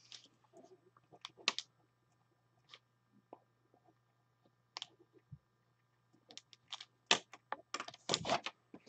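Computer keyboard and mouse clicks: scattered single taps at first, then a quicker run of taps from about six seconds in.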